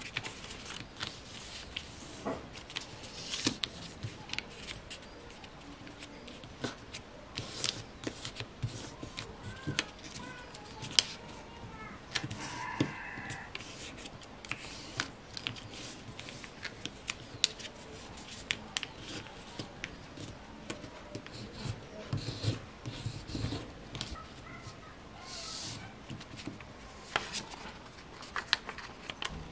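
A sheet of A4 paper being folded by hand into a paper glider: rustling and sliding paper, with many short crisp clicks as folds are creased and pressed flat.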